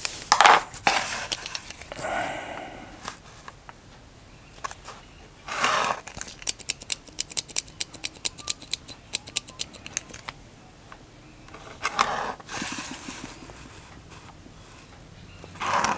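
Drawing tools handled on paper: a quick run of small sharp clicks lasting about four seconds in the middle, then a pencil scratching along a steel rule near the end.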